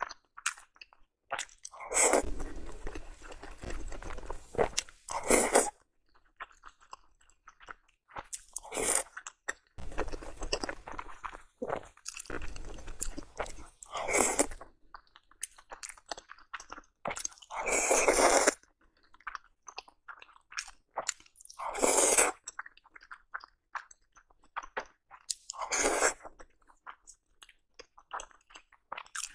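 Close-miked chewing of soft spicy dumplings: about seven loud bites spaced a few seconds apart, with quieter wet chewing and mouth clicks between them.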